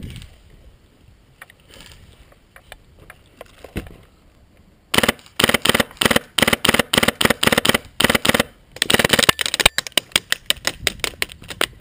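Airsoft gunfire: rapid strings of sharp cracks starting about five seconds in and lasting about four seconds, then a quieter run of cracks near the end.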